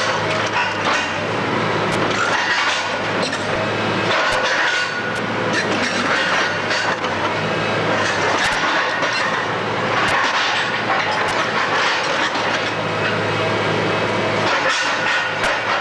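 Demolition machinery working on a building, its engine running steadily under a continuous clatter and crunch of breaking masonry and falling rubble, with sharp knocks every second or so.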